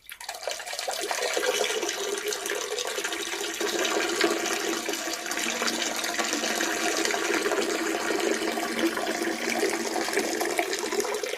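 A steady stream of urine splashing into toilet bowl water, building up in the first second and tapering off near the end.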